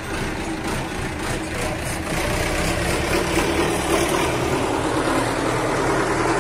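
A machine running steadily: an even mechanical hum with a faint steady tone in it, getting somewhat louder about two seconds in.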